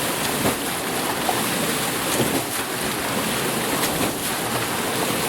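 Water mill: water pouring and splashing off the water wheel in a steady rush, with small sharp splashes here and there.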